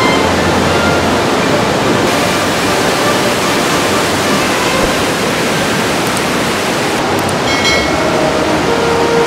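Waterfall and fast-flowing river water rushing over rocks: a loud, steady rush of falling and churning water.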